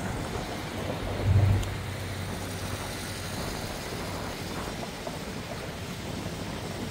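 Street ambience of road traffic with wind buffeting the microphone, and a brief low rumble about a second and a half in.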